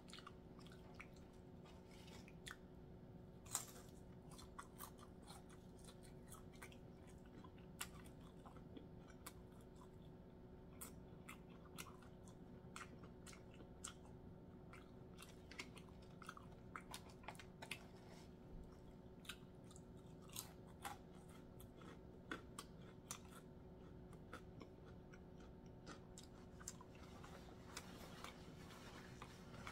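A person chewing fried fish: faint, irregular crunchy clicks of chewing over a steady low hum.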